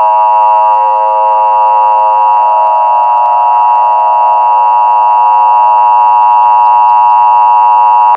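Emergency Alert System two-tone attention signal: a loud, steady electronic alert tone held for about eight seconds, then cut off abruptly.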